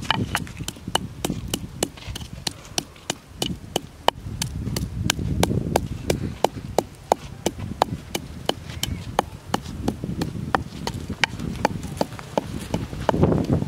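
Wooden pestle pounding salt and dried red chilies in a clay mortar: sharp, even knocks at about three a second.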